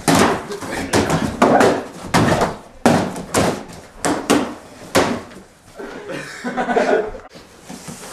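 A run of irregular knocks and thuds, a dozen or more sharp hits, thickest in the first five seconds.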